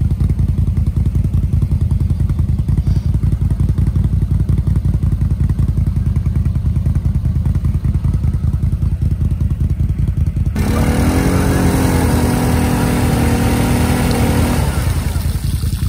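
Vehicle engine running at a low, throbbing idle, then revved hard for about four seconds from about ten and a half seconds in, its pitch rising slightly before it drops back to idle. The vehicle is trying to drive out of deep sawdust.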